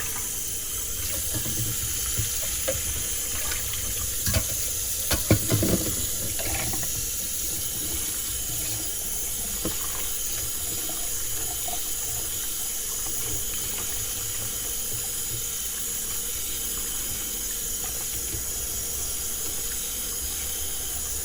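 Kitchen tap running steadily while oregano leaves are rinsed under it, with a few short knocks about four to six seconds in.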